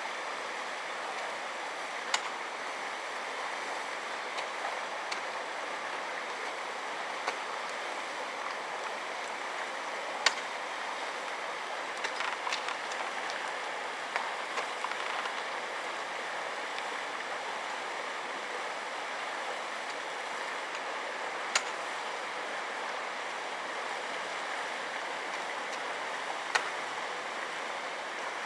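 Steady rush of running water, with a few sharp knocks scattered through it.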